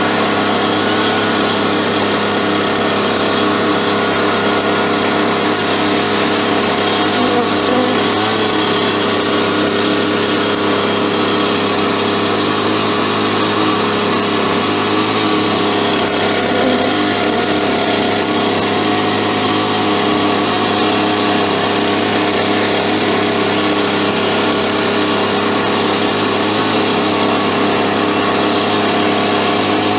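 A motor running steadily at full speed, holding one pitch without revving up or down.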